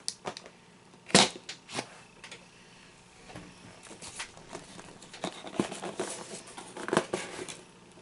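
A knife slitting the tape on a cardboard box, then the cardboard flaps being pushed open and the box handled with rustling and scraping. A sharp snap about a second in is the loudest sound.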